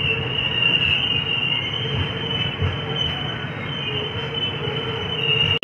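Passenger train rolling slowly through a station, its wheels squealing with a steady, slightly wavering high-pitched screech over the low rumble of the coaches.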